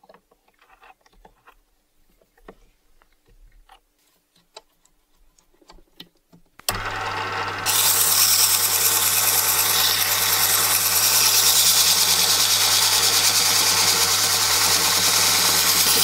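Faint clicks and taps of a lathe's three-jaw chuck being tightened with its chuck key on a wooden handle. About seven seconds in, the small benchtop lathe's motor switches on with a steady hum, and a second later an abrasive strip pressed against the spinning wooden handle adds a loud steady hiss of sanding.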